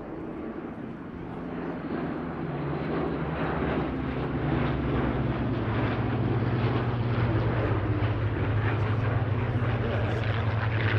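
Piston-engined Hawker Hurricane fighters flying by, their Rolls-Royce Merlin V12 engines droning. The drone builds over the first few seconds as the aircraft approach, its pitch dropping slightly, then holds loud and steady.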